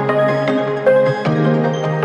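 Electronic background music, a melody over held notes.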